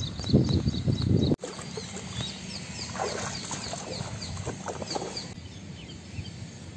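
Water sloshing around a man wading in a shallow pond as he hauls in a fishing net. Throughout, a small bird chirps a repeated series of short, high, falling notes, about three a second. For the first second or so, louder rustling handling noise cuts off abruptly.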